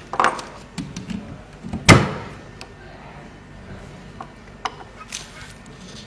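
Handling noises: a few knocks and clicks of plastic alarm parts being moved about on a tabletop. The loudest is a sharp knock just before two seconds in, followed by a few light clicks later on.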